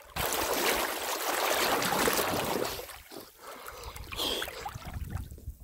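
River water splashing and rushing as a person ducks under and comes back up, for about the first three seconds. Then lighter splashes and drips, fading away near the end.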